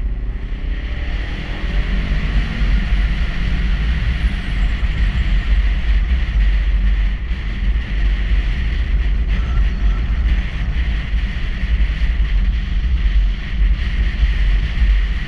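Motorcycle riding along with heavy wind buffeting on the camera microphone over the engine; the engine climbs in pitch as it accelerates in the first few seconds, then runs on steadily at speed.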